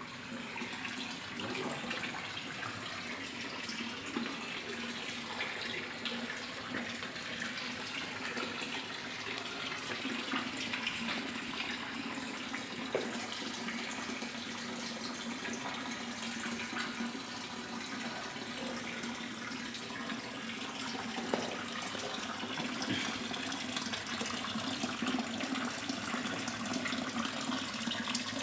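Steady rush of running water, continuous and even, with a few faint clicks.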